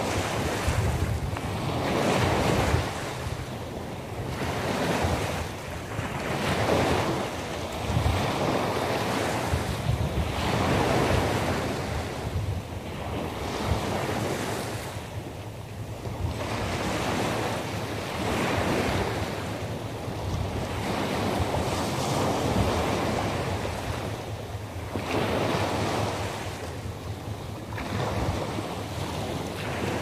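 Sea waves breaking on the shore at night, the surf swelling and falling back every two to three seconds. Wind rumbles on the microphone underneath.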